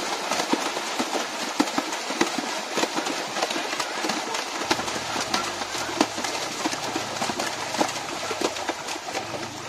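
Many children splashing hard in shallow stream water: a dense, continuous run of splashes and slaps on the water, with children's voices mixed in.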